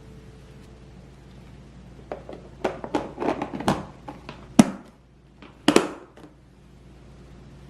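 Kitchen handling clatter: a run of quick clicks and light knocks, then two sharper knocks a little over a second apart.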